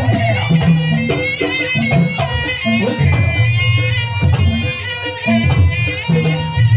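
Live traditional East Javanese ensemble music: hand-drum strokes under a high, wavering melody line.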